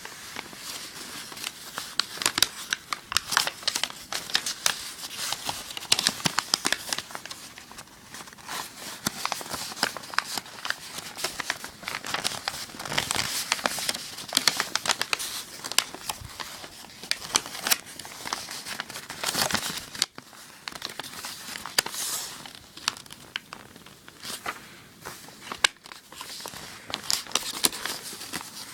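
A sheet of paper being folded and creased by hand: continual crinkling and rustling with many small sharp crackles. There is a brief lull about two-thirds of the way through.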